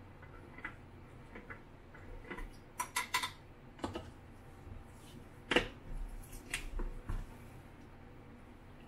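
Scattered light plastic clicks and taps from handling a plastic film developing tank and its red lid in a sink tray. A quick run of clicks comes about three seconds in, and the loudest knock a little past halfway.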